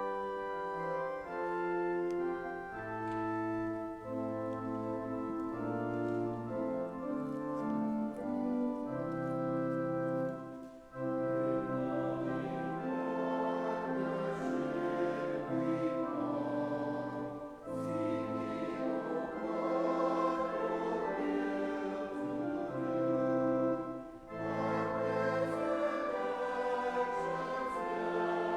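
Church organ playing a hymn in slow held chords, with voices joining in singing the hymn about eleven seconds in and pausing briefly between phrases.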